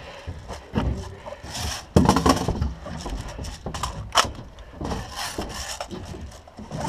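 Irregular scuffs, knocks and rubbing on plywood as a player shifts behind a wooden barricade, with a rifle and gear against the plywood walls and floor. The loudest knock comes about two seconds in, and a sharp click follows about two seconds later.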